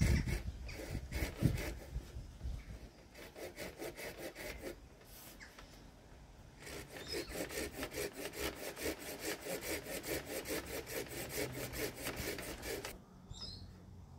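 Hand pruning saw cutting through a bark-covered wooden staff in quick, even back-and-forth strokes, in two runs with a brief pause about five seconds in. Two dull knocks come in the first two seconds. The sawing stops about a second before the end, and a short bird chirp follows.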